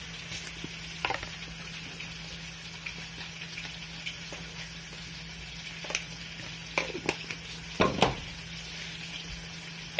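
Chopped chilli and aromatics sizzling softly in oil in a wok, with a steady low hum underneath. A metal spatula scrapes and taps against the wok now and then, the loudest strokes near the end.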